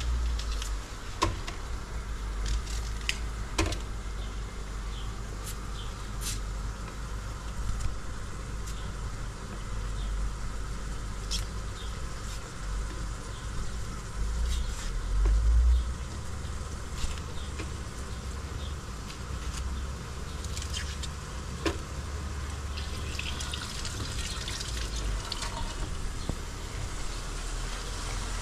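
A knife peeling and trimming an onion by hand: scattered small clicks and crackles of the dry skin, over a steady low rumble.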